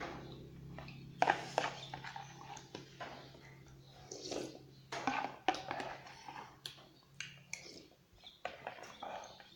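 Close-miked eating sounds from a bowl of noodle soup: irregular smacks and sharp clicks of chewing and mouth noises, some louder than others.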